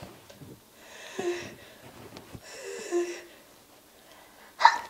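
A woman's wheezy, gasping breaths as a sneeze builds: two hissy in-breaths about a second and a half apart, then a sharp, loud catch of breath near the end.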